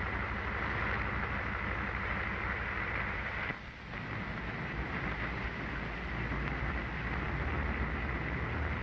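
Steady rumbling noise under the hiss of an old optical film soundtrack, dipping briefly about three and a half seconds in.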